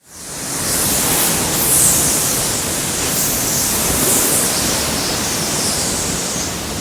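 Hurricane-force wind blowing hard, a loud steady rush that fades in at the start and swells in gusts.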